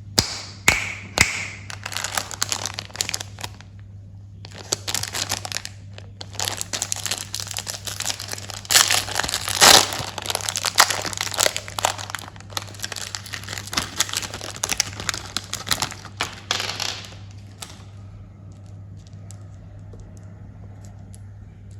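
Plastic candy wrappers crinkling and tearing as candies are unwrapped by hand, with a short lull about four seconds in. The rustling stops about three-quarters of the way through, leaving a low steady hum and a few faint ticks.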